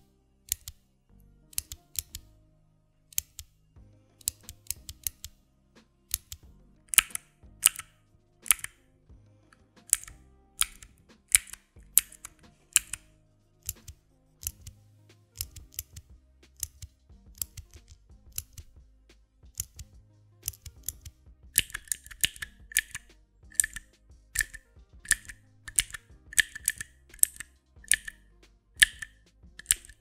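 Clicky Cherry MX key switches, first an MX Blue and then an MX Green, pressed and released one at a time close to a microphone, each press a sharp click, often heard as a close pair. From about two-thirds of the way in, the clicks come faster and each carries a short ringing ping.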